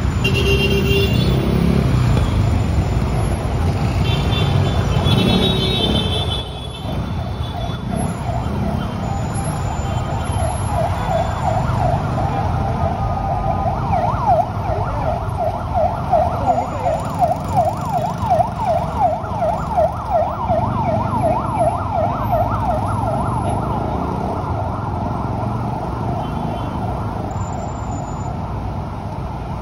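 City street traffic with an emergency-vehicle siren yelping, a rapid rise and fall about three times a second. The siren comes in about a third of the way through, is loudest in the middle and fades out.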